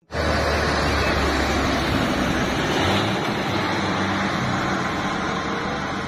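Heavy diesel truck hauling a wheeled excavator on a low-loader driving past on a road: steady engine hum and tyre noise, easing a little near the end.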